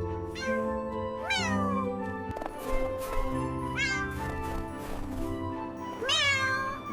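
A cat meowing three times, each a short call that rises and falls in pitch, over soft background music with held notes.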